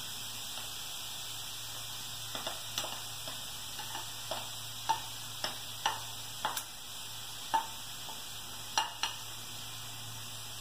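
Plastic spatula tapping and scraping grated carrot out of a ceramic bowl into a frying pan: irregular sharp taps starting about two seconds in, over a steady hiss.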